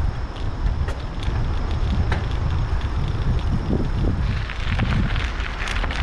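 Wind rumbling on the microphone while a bicycle rolls across wooden footbridge boards with scattered light clicks. About four seconds in the tyres reach a gravel path, and a crunching of gravel under the tyres joins the wind.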